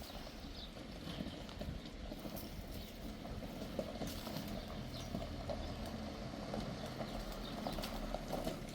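Faint, irregular small clicks and knocks over a low outdoor rumble.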